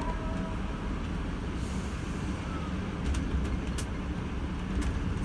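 Mercedes-Benz Travego coach driving, heard from the driver's cab: a steady low engine and road rumble. There is a brief hiss about two seconds in and a few sharp clicks or rattles about three to five seconds in.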